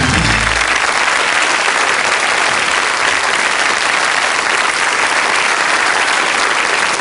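Studio audience applauding steadily, with the last notes of music dying away under it within the first second.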